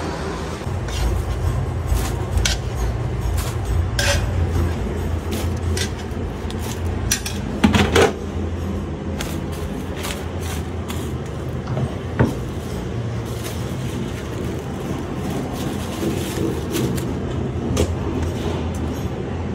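Kitchen work sounds: metal utensils clinking and knocking over a steady low rumble, with two louder clanks about eight and twelve seconds in.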